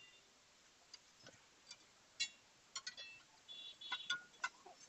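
Scattered light metallic clicks and taps, about ten of them at uneven spacing, with a brief thin ring about three and a half seconds in, as the lock ring is worked off a tractor trailer wheel's steel rim.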